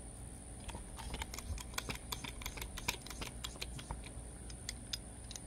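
Light, irregular clicks and taps of small metal parts being handled, thickest through the middle few seconds.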